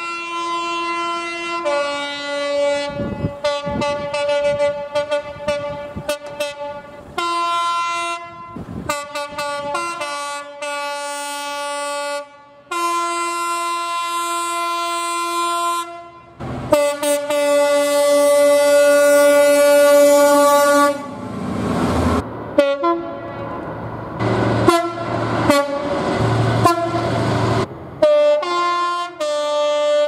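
Diesel freight locomotive's two-tone air horn sounded over and over, switching between a higher and a lower note, with some short toots and some blasts held for several seconds. In the second half the locomotive's engine and the rumble of the passing container wagons are heard under more short toots.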